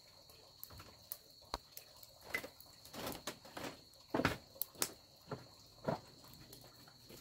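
Steady high-pitched insect drone with scattered, irregular clicks and knocks, a cluster of louder ones about four seconds in.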